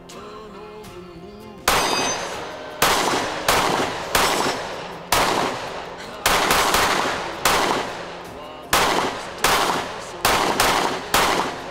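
Springfield Armory XDM Elite 3.8" pistol fired in a steady string of about sixteen shots, roughly two a second, each shot followed by a short ringing echo. A short stretch of background music plays before the first shot.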